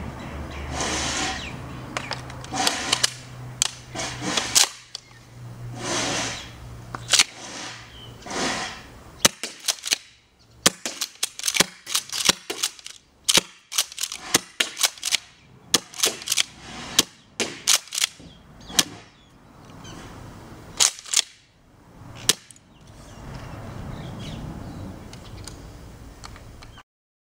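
Tokyo Marui M870 gas airsoft shotgun firing a rapid series of sharp shots, from about ten seconds in until about twenty-two seconds. Softer rushing swells of noise come before and after the shots.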